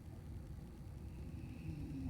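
A sleeping person snoring, a low rumbling breath.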